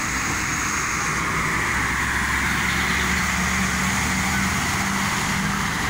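Road traffic passing close by: a car and then a large truck drive past, giving a steady rush of tyre and engine noise, with a low engine hum through the middle as the truck goes by.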